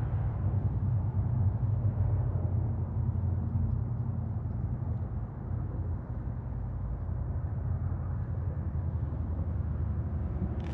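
Electric trolling motor of an Old Town AutoPilot 136 kayak running with a steady low hum.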